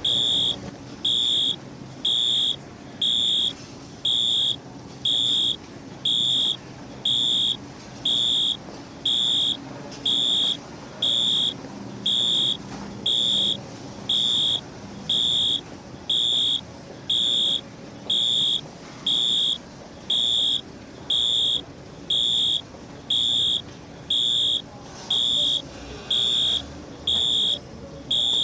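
Bus station fire alarm sounding: a loud, high electronic beep repeating evenly about once a second, each beep about half a second long, over a low background rumble.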